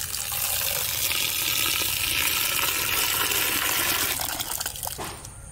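Water being poured in a steady stream into a pot of diced bamboo shoots, splashing onto the pieces, to refill their soaking water. The pour tapers off and stops shortly before the end.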